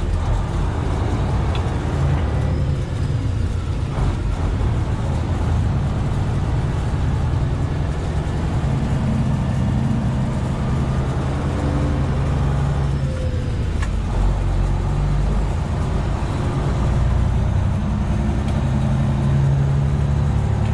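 Semi-truck diesel engine droning steadily from inside the cab while driving at road speed.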